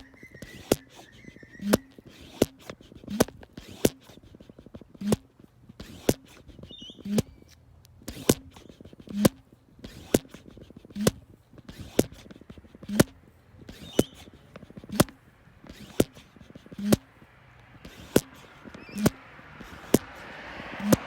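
Hand pump of a cooling-system pressure tester being stroked to pressurise the engine's coolant system toward 15 psi: a sharp click with a short thump about once a second. A faint hiss builds near the end.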